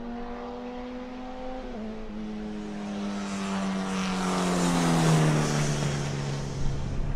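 Formula 1600 single-seater race car's engine running at speed on track. Its pitch climbs slightly and drops with a gear change just under two seconds in, then falls steadily as the car goes by, loudest around five seconds in.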